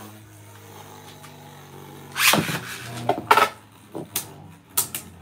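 Beyblade Burst spinning tops in a plastic stadium: one top spins with a steady hum, and a second is launched in with a loud whirring rip about two seconds in. The tops then clack sharply against each other several times.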